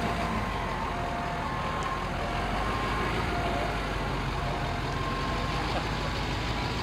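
Heavy-duty dually pickup truck engine running steadily as the truck rolls slowly past, towing an enclosed trailer.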